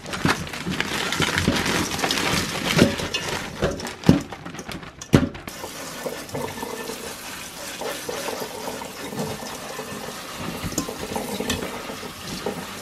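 Frozen diced rhubarb tumbling out of a plastic bag into a metal colander in a stainless-steel sink, with a run of clicks and knocks, the loudest about five seconds in. Then a kitchen faucet's pull-down sprayer runs water steadily over the frozen pieces in the colander.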